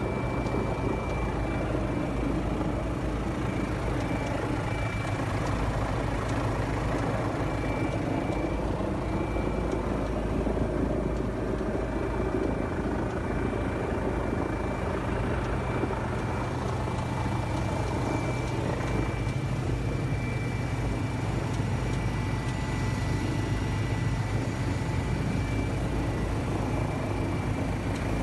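Eurocopter EC135 helicopter's turbine engines and rotor heard from inside the cabin in flight: a steady low drone with a thin, constant high whine over it.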